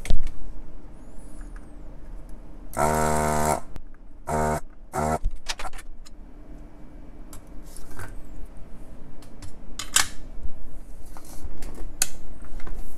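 Electric desoldering tool's vacuum pump buzzing in three short bursts, one longer and two brief, as a shorted transistor is desoldered from the amplifier's power supply card. Light clicks of handling the board and parts come between the bursts and later on.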